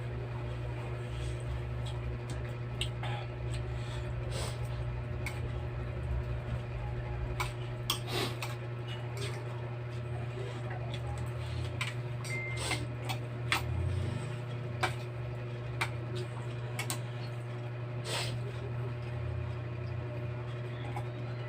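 Eating sounds: scattered clicks and clinks of cutlery against a bowl and wet mouth sounds, over a steady low hum.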